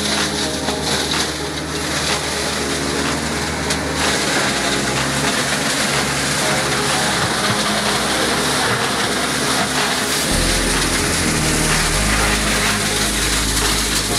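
Kioti DK501C tractor's diesel engine running with a PTO-driven Zanon TCK hammer shredder spinning behind it, chopping orchard prunings: a loud, steady mechanical noise. A deeper rumble comes in about ten seconds in.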